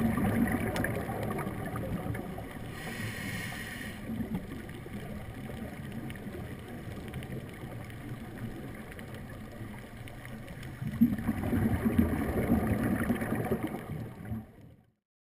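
Underwater water noise picked up by the camera: a low, muffled rumble that swells near the start and again later, with a brief hiss about three seconds in, fading out near the end.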